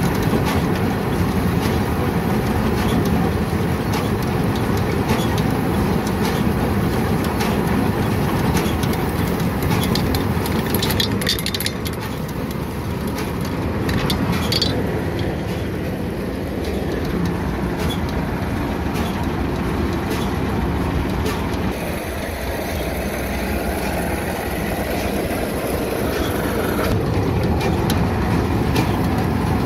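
John Deere 435 round baler running under power, its drive chain, belts and pulleys turning with a steady mechanical clatter and rattle.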